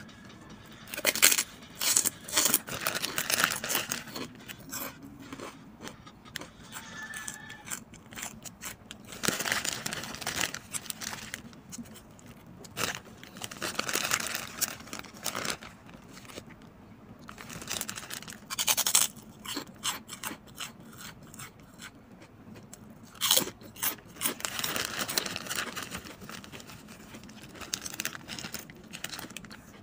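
Crisp chicharon baboy (fried pork rinds) being bitten and chewed close to the microphone: loud, irregular crunching in clusters, with the crinkle of the clear plastic bag as a hand reaches in for more.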